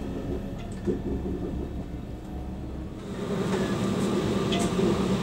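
Running noise of a passenger train heard from inside the carriage: a steady rumble with faint clicks. About three seconds in it turns louder and brighter.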